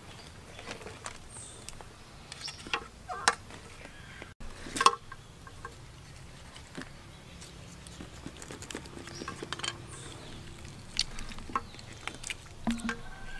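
Scattered clicks, knocks and scrapes of a live spiny lobster's shell being handled on a wooden chopping board, with one sharp knock about five seconds in.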